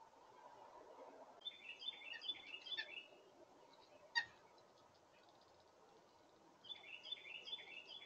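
A songbird singing two short phrases of quick repeated falling notes, a few seconds apart. Between the phrases comes a single sharp click, the loudest sound.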